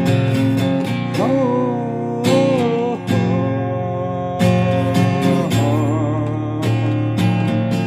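Freshly strung Hohner acoustic guitar played in an improvised jam: strummed chords and picked notes, several of them bent so that they glide and waver in pitch.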